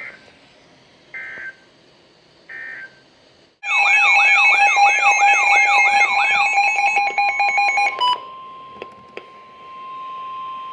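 Three short chirps of Emergency Alert System digital data, about a second apart, the end-of-message code that closes the previous warning. About three and a half seconds in, a loud warbling alert begins, with tones sweeping up and down repeatedly over steady tones. About eight seconds in it gives way to a single steady alert tone that announces the tornado warning.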